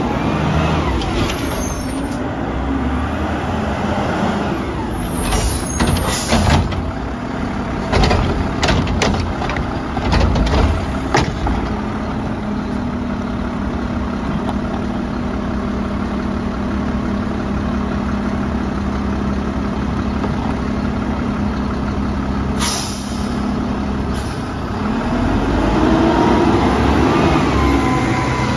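Mack LR front-load garbage truck working bins: a run of clanks and bangs in the first ten seconds or so, then the diesel engine running with a steady drone. Two short air-brake hisses come near the end, then the engine revs up and down.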